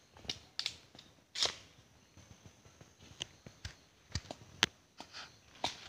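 Footsteps and brushing through dry leaf litter and undergrowth: irregular crackles and twig snaps, the sharpest about a second and a half in and again between four and five seconds in.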